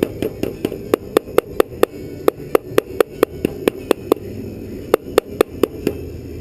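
Rapid light hammer taps on metal, about four a second with a short break a little past the middle, each strike leaving a ringing tone.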